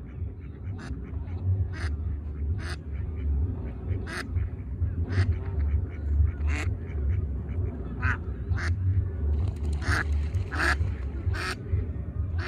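Mallards on the water giving short calls, one every half second to a second and coming faster near the end, over a steady low rumble.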